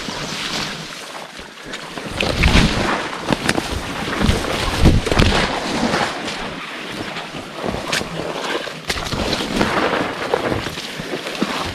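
Pushing on foot through dense brush: branches and leaves rustling and scraping, with scattered sharp snaps and wind buffeting the microphone in uneven low thumps.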